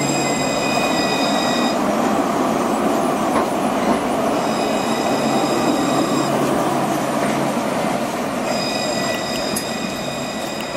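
Luas light-rail tram (Alstom Citadis) running past close by on street track, with a steady rolling rumble of wheels and running gear. Over it, a high steady whine sounds three times, about two seconds each, near the start, in the middle and near the end.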